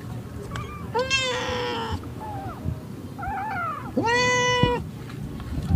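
A cat meowing: a drawn-out meow about a second in, a few shorter, softer calls after it, then the loudest meow about four seconds in.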